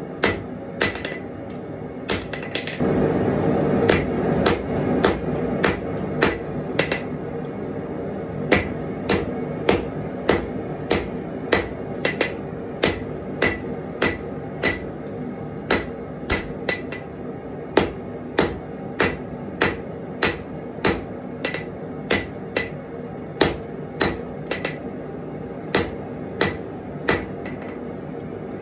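Hand hammer striking a red-hot steel knife blade on an anvil, an even run of about two blows a second, each with a short metallic ring. A louder rushing noise swells under the blows for a couple of seconds about three seconds in.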